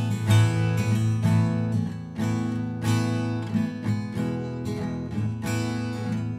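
Instrumental music: repeated strummed chords on an acoustic guitar, with no singing.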